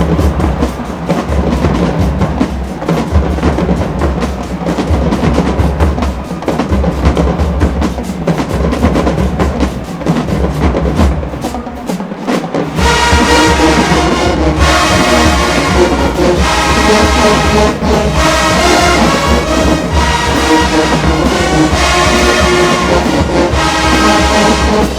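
Marching band playing: for the first half the drumline carries a percussion breakdown, with heavy bass drums. About halfway through, the full brass section comes in loud over the drums.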